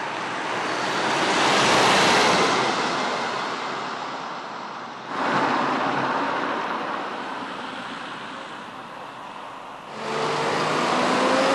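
An emergency vehicle drives past, its road and engine noise swelling and then fading. After a cut, a steady rushing noise slowly fades. Near the end, a fire engine pulls away, its engine rising in pitch.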